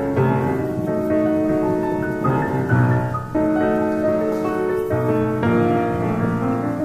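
Background piano music: slow held chords changing every second or so.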